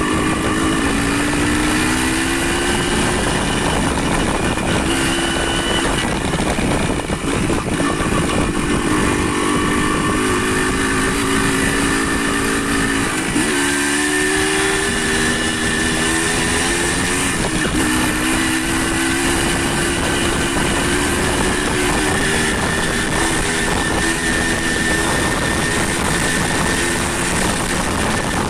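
Motorcycle engine running while under way, its pitch climbing slowly and dropping back several times, over a steady rushing noise.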